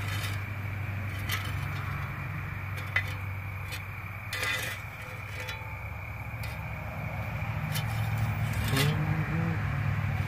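Metal shovel blade scraping and clinking in ash and gravel, a few separate scrapes with the strongest about halfway through, over a steady low hum.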